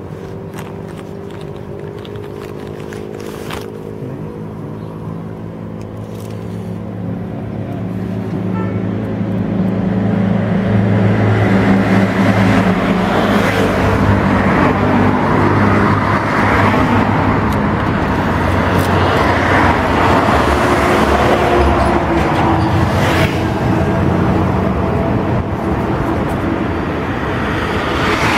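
Highway bus engine running with a steady low hum, then speeding up from about six seconds in, its engine and road noise growing louder until about ten seconds in and then holding steady at speed.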